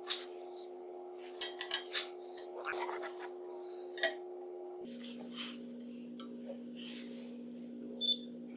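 Sharp metal clinks and clicks as a digital dial indicator and its small C-clamp are handled and set on the planer's metal frame. There is a quick cluster of loud clinks about a second and a half in and a few lighter ones near the end, over a steady hum that drops in pitch about halfway through.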